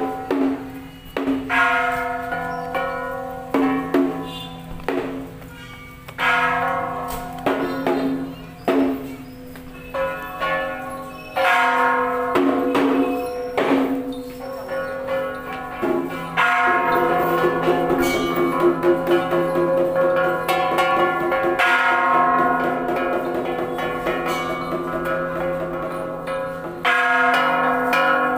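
Ritual bells struck again and again at irregular intervals, each stroke ringing on. The strokes come thicker and overlap through the middle of the second half.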